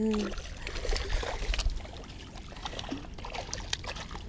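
Water trickling and lapping, with scattered small clicks and a low rumble underneath.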